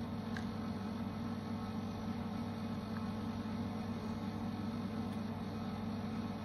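A steady low hum that holds unchanged throughout, with one faint click about half a second in.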